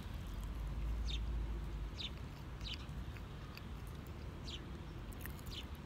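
A small bird chirping over and over: short, high calls, each falling in pitch, coming about once a second or a little faster. A low rumble sits under the first two seconds.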